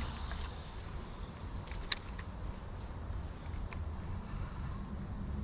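Steady high-pitched insect chorus over a low rumble, with a single sharp click about two seconds in.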